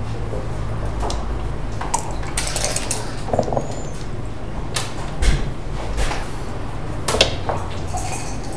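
Clicks and clatters of backgammon play: a checker set down on the board, dice rattling briefly and landing on the board, and the game clock's button pressed. A steady low hum runs underneath.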